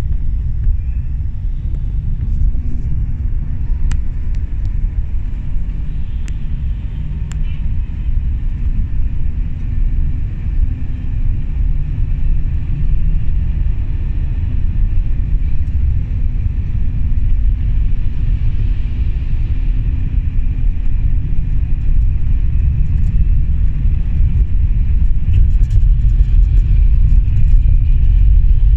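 Steady low rumble of engine and road noise inside a moving bus cabin, growing a little louder toward the end.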